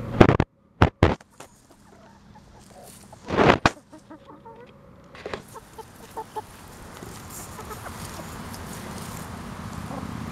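Hens clucking softly while scratching and pecking in dirt and dry leaves. A few loud short knocks come about a second in and again around three and a half seconds.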